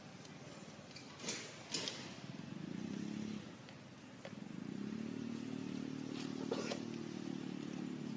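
A vehicle engine running steadily at a low pitch, fading briefly and then coming back stronger. It follows two sharp knocks about a second and a half in.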